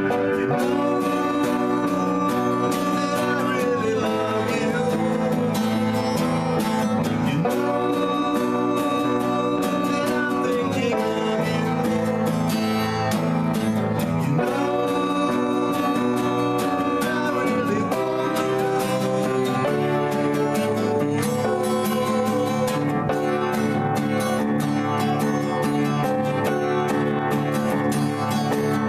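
Acoustic guitar strummed in a steady rhythm under a woman singing a melody, with long held notes in phrases a few seconds long.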